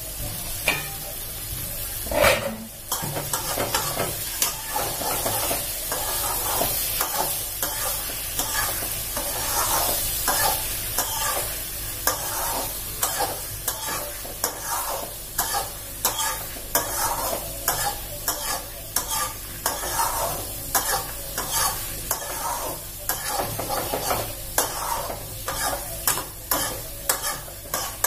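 Long metal spatula stirring and scraping round a metal kadai, about two strokes a second, while the chicken and banana-stem curry in it sizzles. A single metal clank about two seconds in as the pan's lid comes off.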